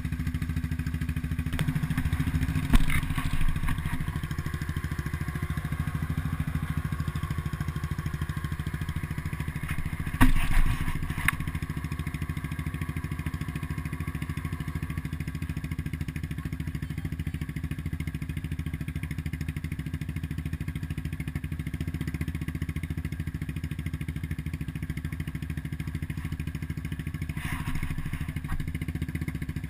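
ATV engine idling steadily in the mud. Sharp knocks come about three seconds in and again about ten seconds in.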